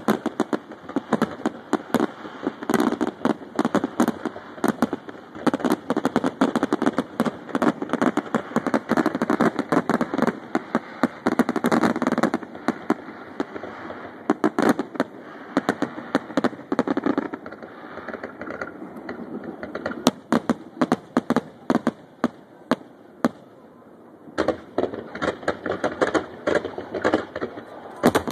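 Fireworks display with aerial shells bursting in a rapid, dense run of bangs. The bangs thin out a little past the middle, then come thick and fast again near the end as a heavy barrage goes up.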